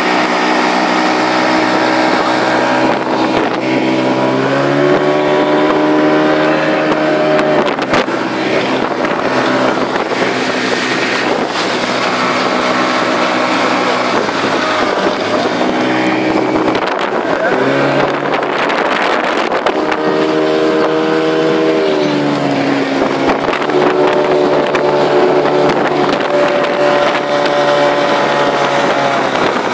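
A circa-1983 Evinrude 60 hp two-stroke outboard running at full throttle, its engine note rising and falling in pitch several times, over the rush of the wake.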